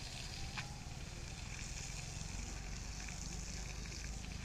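Water from a garden hose spraying and splashing onto an elephant and the wet concrete floor: a steady hiss of spray.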